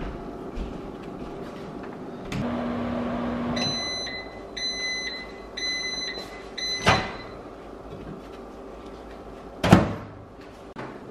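Microwave oven finishing its cycle: a steady hum stops, then four beeps, each about half a second, signal the end of cooking. A sharp click follows, then near the end a loud clack of the microwave door.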